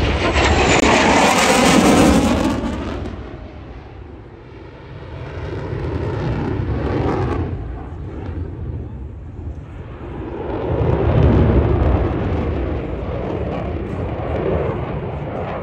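F-16 Fighting Falcon's jet engine heard as the fighter flies past overhead, loudest about two seconds in with a sweeping whoosh, then fading and swelling again twice as the jet manoeuvres.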